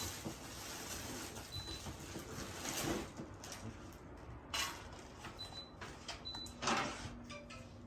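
Scattered clicks and knocks of hands and tools working on a ceiling fan being installed, after a stretch of steady hiss in the first few seconds.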